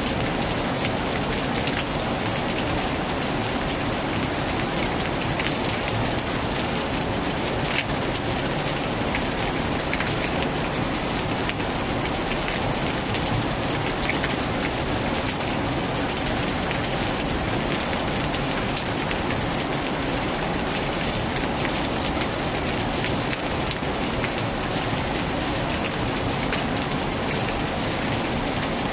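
Heavy rain falling steadily on a tin roof: an even, unbroken hiss with scattered individual drop ticks.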